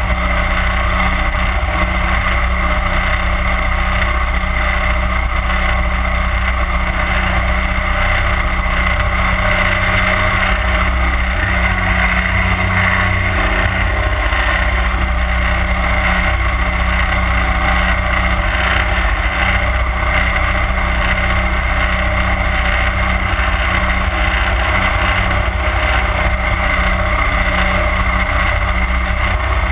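31 hp Mud Buddy Hyperdrive surface-drive mud motor running steadily at cruising speed, pushing the aluminum boat along, with water rushing and spraying along the hull.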